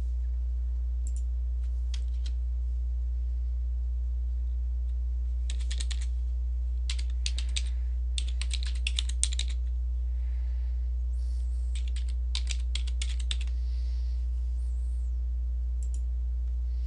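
Typing on a computer keyboard: several short bursts of key clicks with pauses between them, over a steady low hum.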